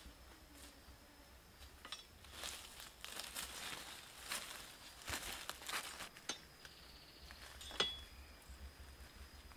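Bare feet stepping through dry leaf litter and brushing past undergrowth: irregular crunching and rustling, heaviest in the middle, with one sharp crack near the end.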